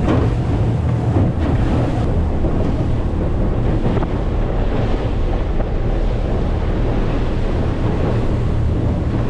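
Boat underway on a Honda four-stroke outboard, the motor running steadily under water rush and heavy wind buffeting on the microphone.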